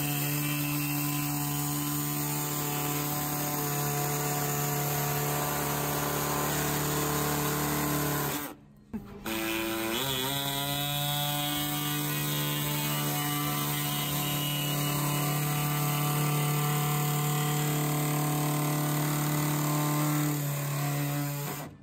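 Small handheld power tool running steadily as it cuts a truck's plastic lower front valance along a taped line. It stops about eight and a half seconds in, spins back up with a rising pitch a second later, and runs on until just before the end.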